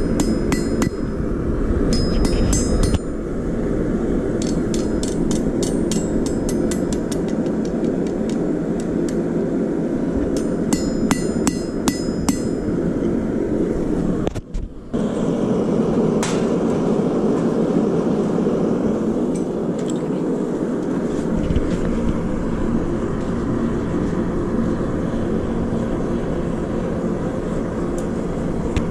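A blacksmith's hammer striking steel on an anvil in quick runs of ringing blows, then a few scattered strikes. Underneath is a steady low rushing noise from the running forge.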